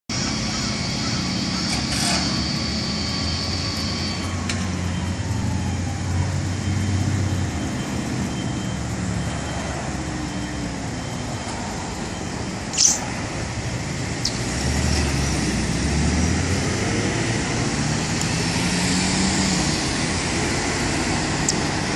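Road traffic: passing cars running steadily, with a city bus engine running close by in the second half. One short sharp click about 13 seconds in.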